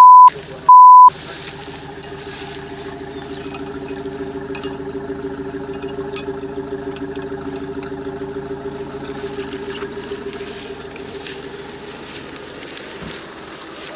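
Two short censor bleeps in the first second. Then a UAZ-469 off-roader's engine idles steadily, with scattered light clicks over it.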